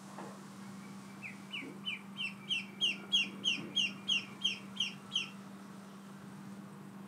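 Ducklings peeping: a run of about a dozen short, high, downward-sliding peeps, about three a second, which stop a little after halfway.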